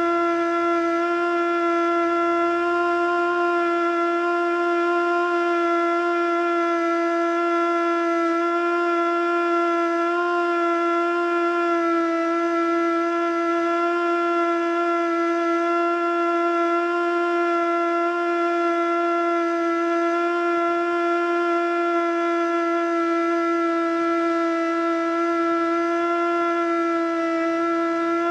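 Federal Signal Model 2 siren sounding its steady alert tone, holding one pitch that never reaches full pitch and wavers slightly. The uploader takes it for a sick siren, probably with worn motor brushes.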